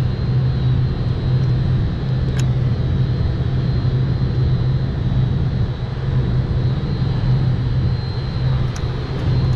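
A steady, loud low mechanical drone with a hum, with a single sharp click about two and a half seconds in.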